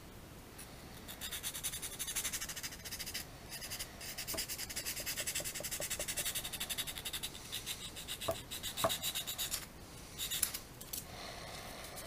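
Small metal hand file scraping back and forth on a plastic model-kit part in quick, short strokes, with a short pause about a third of the way in, stopping about three-quarters through, then one brief further burst.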